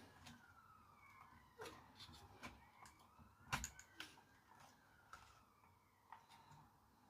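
Near silence with light clicks and taps of a hi-fi tuner's parts being handled, the loudest about three and a half seconds in, under a faint siren slowly rising and falling.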